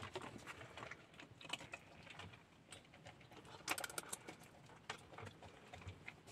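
Galgos eating: faint, irregular clicks and taps of chewing and of food bowls, with a sharper cluster of clicks a little past the middle.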